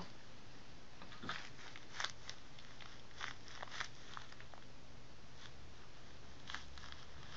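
A few faint, short clicks and scuffles from a puppy moving about as it gets up and stands, scattered over a low steady hum.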